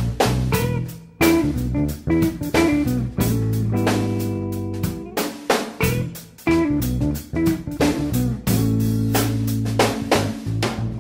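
Background music: a guitar-led track with a drum kit keeping the beat.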